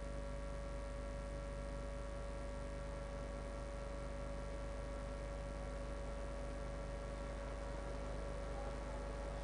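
Steady electrical mains hum with several fixed tones over a constant hiss, unchanging throughout.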